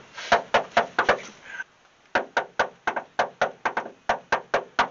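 Rapid knocking on a front door, about five knocks a second in two long runs with a short pause about two seconds in.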